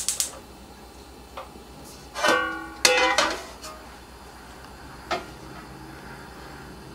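Gas hob's spark igniter clicking rapidly and stopping just after the start, then two short metallic knocks with a brief ringing tone about two and three seconds in, typical of an aluminium wok knocked against the cast-iron burner grate, and a light tick near five seconds.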